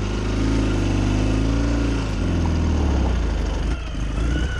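Ural Gear Up sidecar motorcycle's 750 cc flat-twin engine running under way, its pitch swelling and dropping, with a brief dip about two seconds in.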